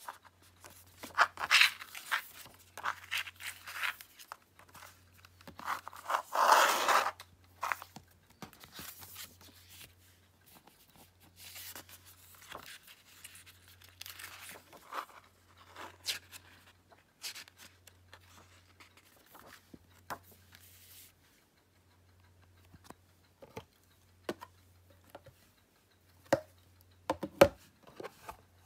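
Disc packaging being handled by hand: irregular rustling, scraping and tearing, loudest in a burst about six seconds in, with a few sharp clicks near the end.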